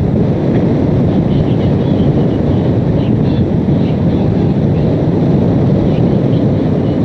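Hurricane-force wind buffeting the microphone: a loud, steady, low rumble.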